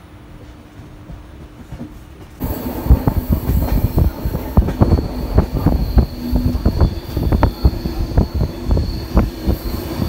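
Moving train heard from a window: wheels clattering and knocking over the rails, with a faint steady high whine. It starts abruptly about two and a half seconds in, after a quieter stretch.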